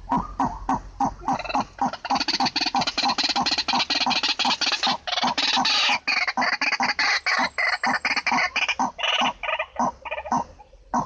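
White-breasted waterhens (ruak-ruak) calling loudly: a fast run of harsh, repeated croaking notes, about three or four a second. The notes thicken into a dense clamour in the middle and thin out near the end.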